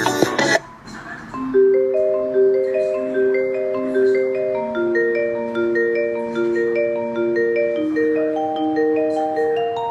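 Music: a loud, dense passage cuts off about half a second in, then a calm melody of evenly spaced, held notes with a mallet-percussion sound, like a marimba or vibraphone, plays in two or three voices.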